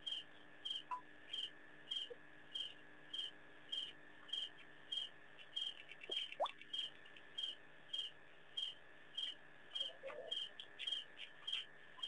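Night insects at a waterhole: a cricket chirping about two to three times a second over a steady high insect drone. A short rising squeak comes about halfway through.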